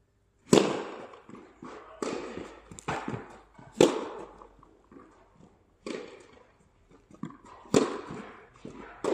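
A tennis rally: sharp pops of racket strings striking the ball and the ball bouncing on the court. The loudest strikes come about every four seconds, with quieter hits in between.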